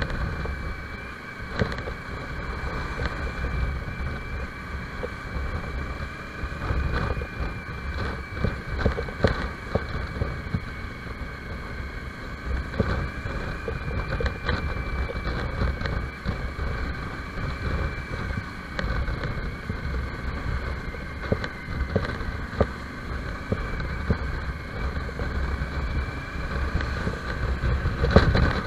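Motorcycle engine running steadily while riding, heard from a camera on the bike, with wind buffeting the microphone and a low road rumble.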